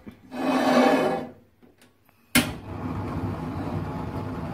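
An aluminium pan scraped across a gas stove's grate, then about two seconds in a gas burner lights with a sudden whoosh and keeps burning with a steady rushing noise.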